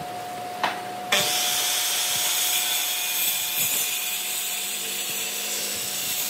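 Handheld electric circular saw running, with a short click about half a second in. About a second in the blade bites into a weathered reclaimed boat-wood beam, and the saw cuts steadily along it.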